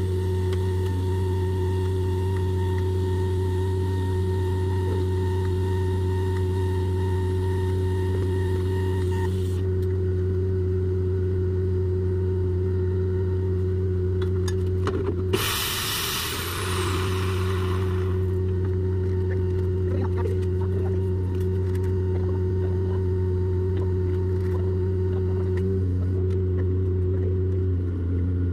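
Engine running steadily, with the thin hiss and whine of a TIG welding arc on stainless steel pipe over it for the first nine seconds or so, until the arc stops. About halfway a short, sharp hiss lasts two to three seconds.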